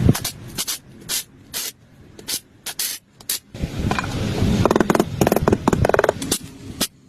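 A series of short hissing spray bursts, several a second; a buzzing sound joins for a couple of seconds past the middle.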